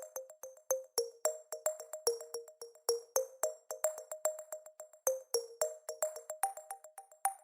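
Background music: a quick, steady rhythm of short, plucked electronic notes with a bright chiming top.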